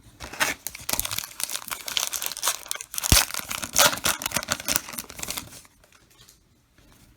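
Plastic wrapper of a baseball card pack being crinkled and torn open, a dense crackling that is loudest about halfway through and stops a couple of seconds before the end.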